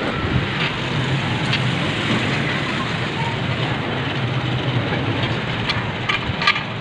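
Steady background rumble with a few sharp metallic clicks, the loudest near the end, as a nut and bolt are fitted by hand on the steel frame of a homemade bending press.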